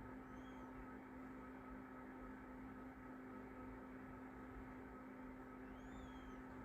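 Faint steady hum and hiss, close to silence, with two faint short high chirps: one about half a second in and one near the end.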